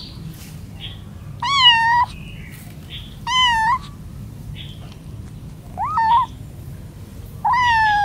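Young kitten meowing four times, each call about half a second long: the calls a kitten away from its mother makes to find its littermates and call the mother cat.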